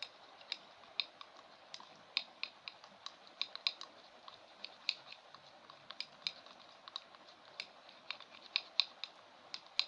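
Spoon stirring a glue, water and soap mixture for slime in a container, clicking against the sides: irregular light clicks, two or three a second.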